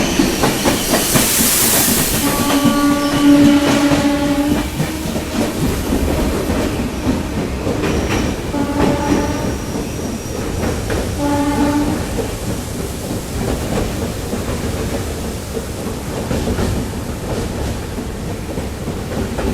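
A steady loud rumble with a horn sounding three times: a long blast about two seconds in, then two shorter ones around nine and eleven seconds. A brief burst of hiss comes just before the first blast.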